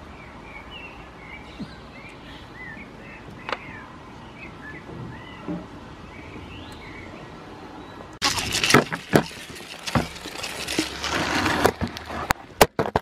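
Small birds chirping and twittering over a steady outdoor background. About eight seconds in, a sudden loud burst of rustling and scattered knocks takes over until the end.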